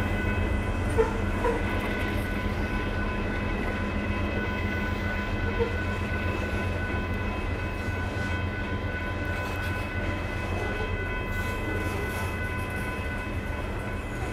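Freight train's covered hopper cars rolling past: a steady low rumble with several steady high tones held above it, and two sharp knocks, about a second in and again near six seconds.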